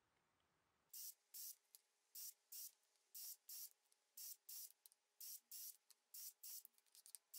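Faint rhythmic hissing percussion from background music: short high-pitched bursts in pairs about once a second, starting about a second in.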